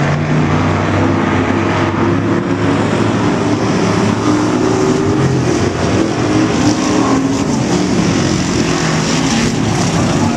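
Several factory stock race cars running at racing speed, their engines blending into a loud, continuous drone whose pitch shifts as cars go by.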